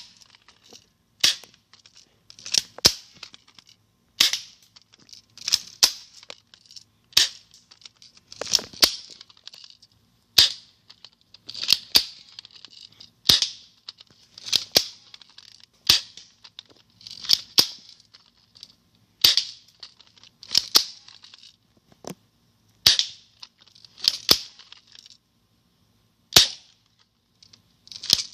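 Air gun fired over and over, a sharp pop roughly every one and a half seconds, most shots led by a short rasping noise.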